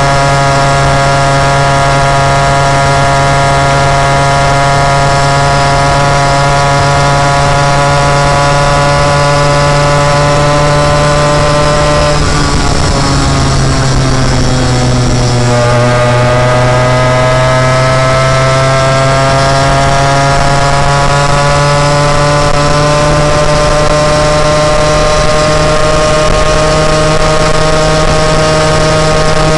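Moped engine running steadily under way. About twelve seconds in its pitch drops as it slows, then climbs back up a few seconds later and holds.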